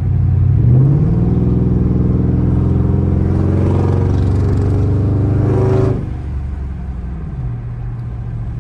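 Mercury Grand Marquis GS V8 with a loud exhaust, heard from inside the cabin, accelerating at part throttle. The revs climb and hold loud for about five seconds, then the note drops suddenly to a lower cruising drone as the throttle is lifted.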